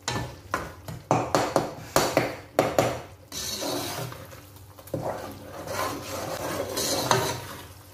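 A spoon knocking and scraping against a pan as chopped tomatoes and spices are stirred and fried in oil. There is a quick run of sharp clacks in the first three seconds, then slower stirring and scraping over a soft frying hiss.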